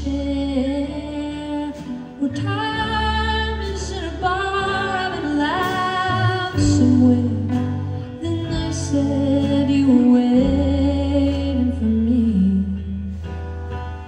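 Live folk song: a woman singing over acoustic guitar, with a bowed violin adding a melody line.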